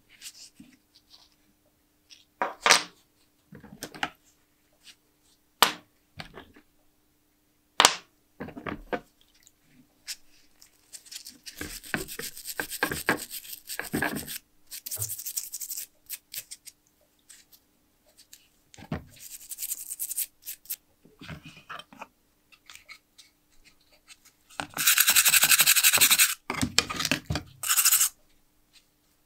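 Wire brush scrubbing the rust-stained metal shell of a vintage hand-cranked pencil sharpener wet with rust remover, in several scrubbing bursts, the longest and loudest near the end. Before that, scattered knocks and clicks of the metal parts being handled in the plastic tub.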